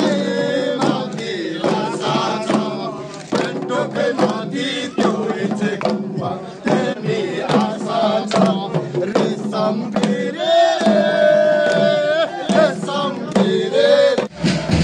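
A group of men singing a chant together while beating hand-held frame drums in a steady rhythm as they walk. About ten seconds in, one voice holds a long high note.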